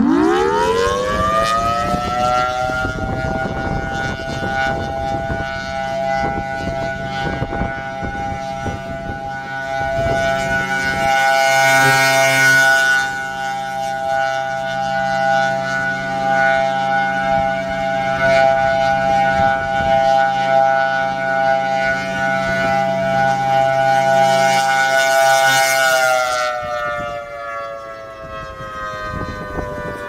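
Federal Signal Thunderbolt 1003 rotating civil defense siren winding up with a rising pitch over about three seconds, then sounding a steady chord of several tones that swells and fades as the horn turns. About four seconds from the end it begins winding down, the pitch falling.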